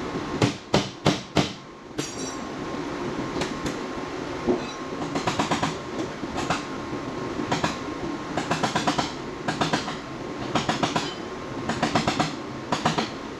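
Four sharp metal strikes in quick succession about half a second in, then repeated short bursts of rapid metallic clicking from hand tools at work on the truck's body.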